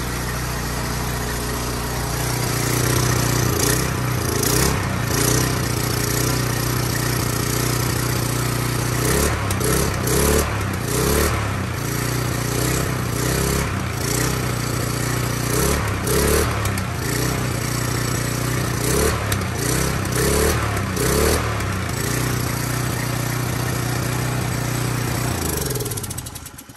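Briggs & Stratton small engine of a Troy-Bilt pressure washer running, its carburetor cleaned and its stuck needle freed. The pitch wavers unevenly through the middle, and the engine is shut off and winds down near the end.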